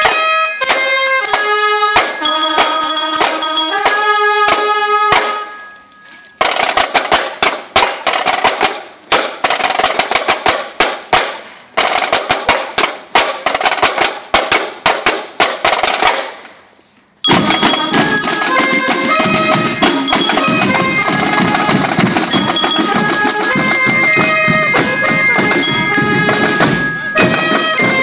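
Marching percussion band playing. First, bell lyres ring out a melody of struck metal-bar notes; after a short break a drumline of snares and tenor drums plays a fast cadence; after another short break, bell lyres play over the drums.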